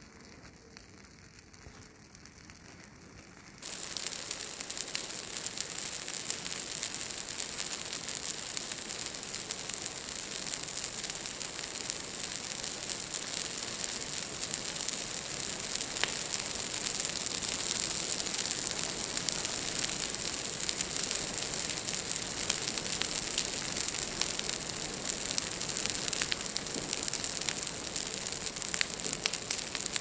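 Fresh spruce boughs of a signal fire burning, with dense crackling and hissing. The sound is faint at first and jumps much louder about four seconds in.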